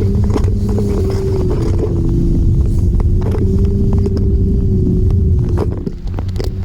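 A vehicle engine running steadily at a near-constant pitch over a heavy low rumble, with scattered knocks and clicks.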